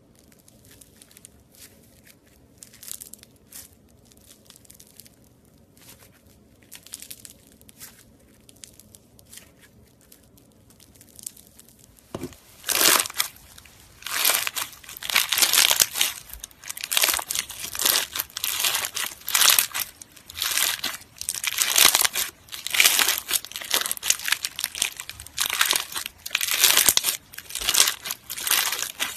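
Crunchy slime squeezed and kneaded by hand, crackling and popping. Faint scattered crackles for the first part, then much louder crackling bursts about once a second from a little before halfway on.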